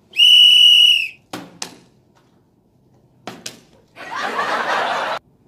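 A loud, steady high-pitched tone lasting about a second, then a plastic water bottle knocking down on a table twice in quick succession and twice more a couple of seconds later. Near the end comes a noisy burst of about a second that cuts off suddenly.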